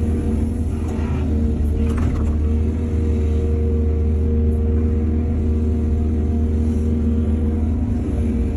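Excavator's diesel engine running steadily, with faint knocks about one and two seconds in.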